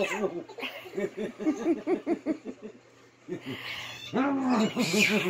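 Rhythmic laughing in short pulses, about four or five a second. It dies down around the middle and picks up again strongly near the end.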